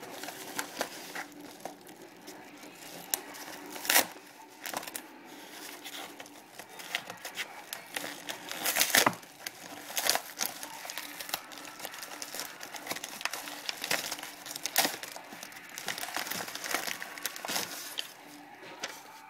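Yellow padded mailer envelope being handled and opened: the paper and padding crinkle and rustle throughout, broken by sharp crackles that are loudest about four seconds in and around nine seconds.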